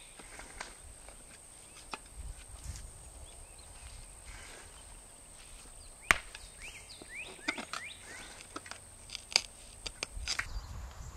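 A short-handled pick chopping and scraping into dirt and small rocks: irregular knocks, the sharpest about six seconds in and again about nine seconds in.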